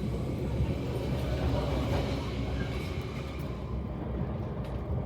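Passenger train running along the line, heard on board as a steady low rumble of the carriage on the rails. A higher hiss above it thins out about three and a half seconds in.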